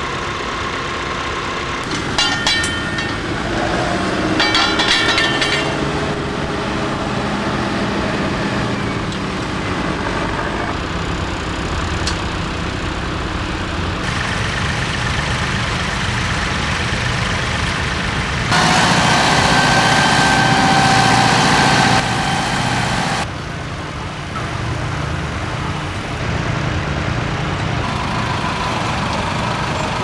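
Diesel tractor engines running while tractors plough the field. The sound shifts abruptly several times and is louder and brighter for a few seconds about two-thirds of the way through.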